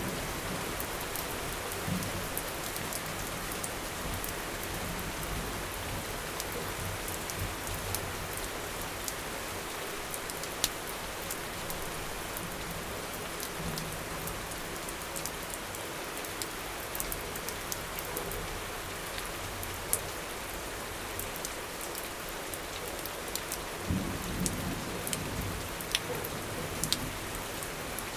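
Steady rain pouring down, with individual drops ticking sharply close by. A low rumble rises under the rain near the end.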